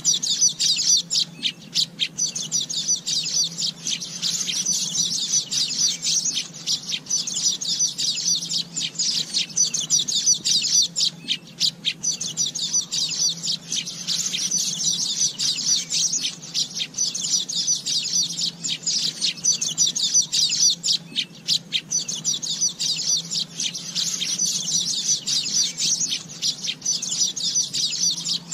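Asian golden weaver chattering: a fast, continuous, high-pitched twittering full of short dry ticking notes, swelling and easing every few seconds.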